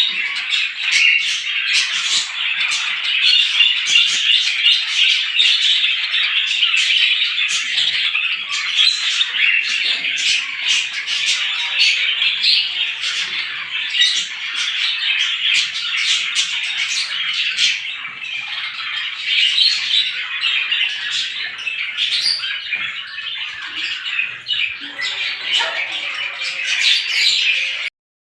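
Dense, continuous chorus of many small birds chirping and squawking all at once, in a rapid jumble of short high calls. It drops out briefly near the end.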